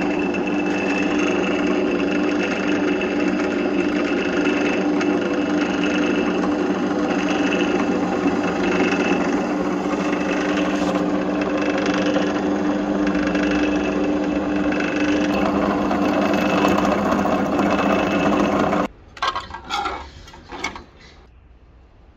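Full Boar benchtop drill press running steadily at about 616 RPM, its motor whining evenly while a 2.5 mm bit drills out the 1 mm oil restrictor in a turbo oil-feed fitting. The motor stops near the end, followed by a few faint handling clicks.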